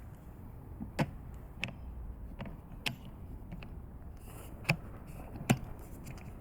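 Six or so sharp, short clicks and knocks at uneven intervals over a steady low rumble, the loudest two near the end.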